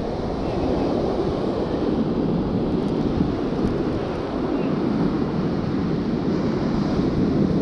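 Surf breaking and washing up a sand beach, mixed with wind buffeting the microphone: a steady rushing noise.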